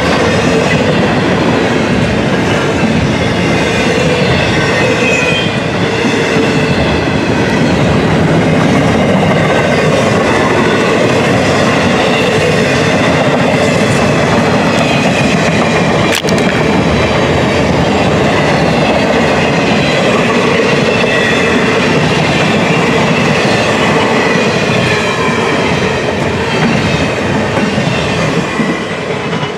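Double-stack intermodal container cars rolling past close by: a steady rumble and rattle of steel wheels on the rails that starts to fade near the end as the last cars go by.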